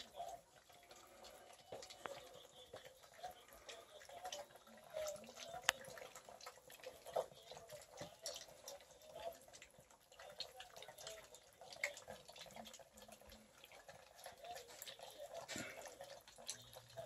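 Five-week-old Catahoula Bulldog puppies lapping and chewing soft, milk-soaked food from a dish: faint, irregular wet clicks and smacks.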